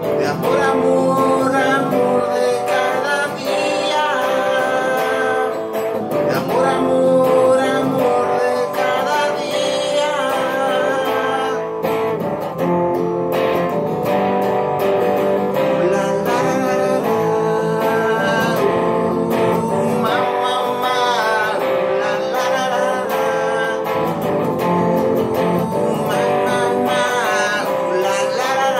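A man singing a slow song while strumming and picking an acoustic guitar.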